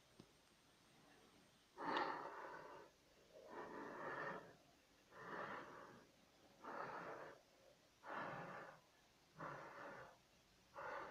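Someone breathing close to the microphone, a breath sound about every second and a half.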